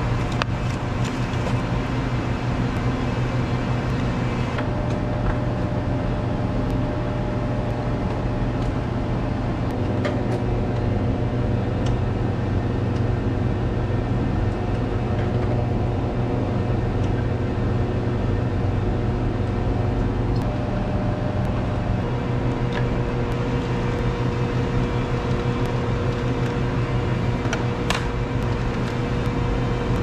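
A steady low mechanical hum, with a few light clicks and knocks from hardware being handled as a monitor and its mounting plate are fitted.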